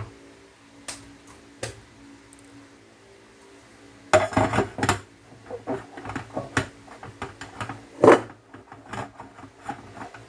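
A stainless steel saucepan and a wire mesh strainer clatter as they are handled on a gas stove's grate: a run of metal knocks about four seconds in and one loud clank about eight seconds in, with scattered lighter clicks between them.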